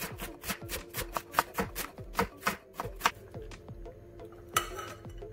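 Chef's knife shredding cabbage on a wooden cutting board: quick, even knife strikes on the board, about four or five a second, easing off about three seconds in.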